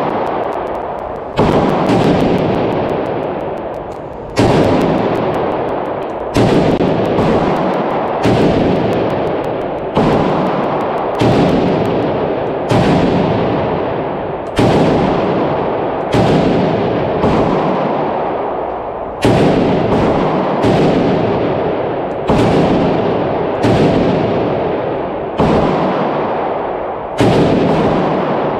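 SAM7R, an AK-pattern rifle in 7.62×39mm, fired one shot at a time, about sixteen shots spaced one to three seconds apart. Each report echoes and fades slowly in the indoor range.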